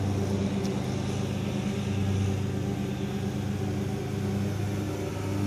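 DJI Phantom 3 quadcopter drone in flight, its propellers giving a steady hum.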